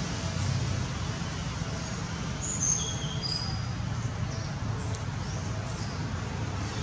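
Steady outdoor background of low rumble and hiss. About two and a half seconds in comes a brief series of high, thin chirps, each one lower than the last.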